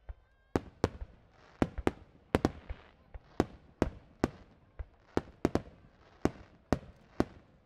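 Aerial fireworks shells bursting in a rapid barrage: about twenty sharp bangs at an irregular pace, starting about half a second in, with a hiss of crackle between them.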